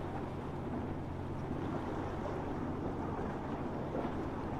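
Boat engines running steadily, a low drone mixed with wind and water noise.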